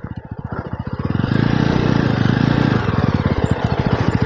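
Jawa 42 motorcycle's single-cylinder engine running at low revs with an even, rapid beat, joined about a second in by louder road and wind noise as the bike rolls on.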